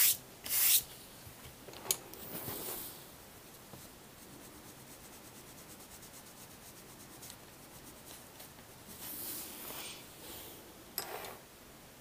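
A hand rubbing and sweeping across a sheet of paper in a few loud swishes, with light, fast coloured-pencil strokes scratching on the paper between them.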